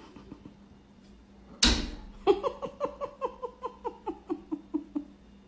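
A dog bangs once against a glass sliding door, a sharp knock on the glass. A quick run of about fourteen short vocal notes follows, about five a second, falling slowly in pitch.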